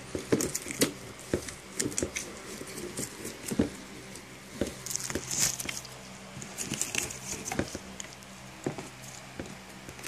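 Hands handling a plastic container and a ribbed vacuum hose: irregular small clicks, taps and rustles.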